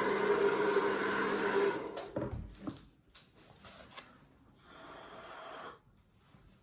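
Hair dryer blowing steadily with a motor hum, switched off about two seconds in. Then a few light knocks and a brief soft hiss.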